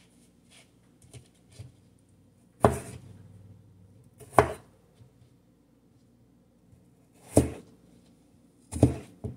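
Plastic knife chopping through raw potato and striking a plastic cutting board: about four sharp chops a second or more apart, with a few faint taps before them.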